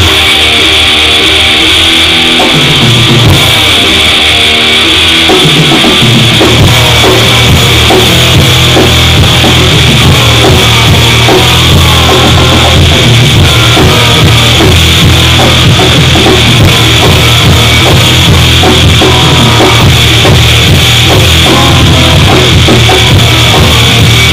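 Gore-noise grind music with distorted guitar and drums at a constant, very loud level; the bass end thickens about six seconds in.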